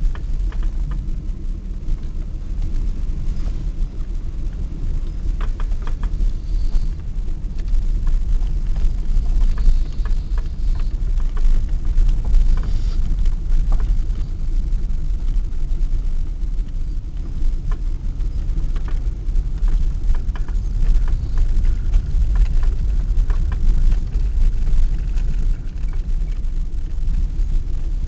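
Steady low rumble of a vehicle being driven, engine and road noise heard from inside, with scattered small clicks.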